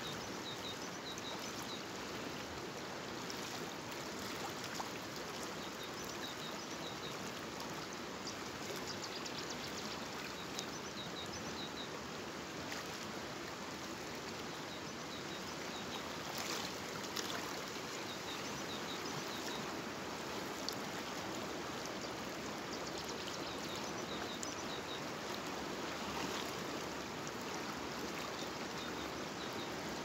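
River water flowing steadily past the bank, an even rushing sound.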